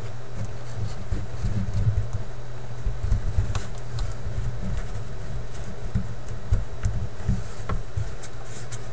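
Scattered light ticks and rustles of paper lining being handled and pressed into place inside a record player cabinet, over a steady low hum.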